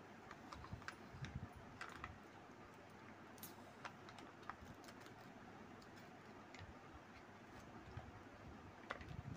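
Faint, irregular clicks and crinkles of a sealed plastic juice cup being handled and its foil lid peeled back by hand, with a louder click near the end.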